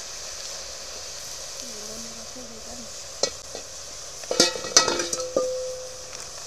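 Chopped greens sizzling steadily in an aluminium pot. From about three seconds in, aluminium pots and a lid knock together in a run of sharp metallic clanks, the loudest a second later, some ringing on briefly.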